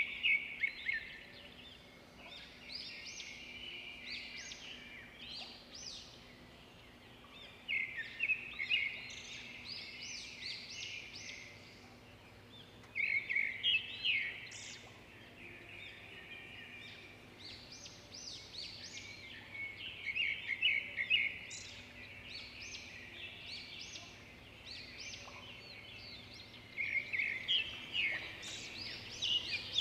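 Bird song: phrases of rapid chirps and whistles, coming back every few seconds, over a faint steady hum.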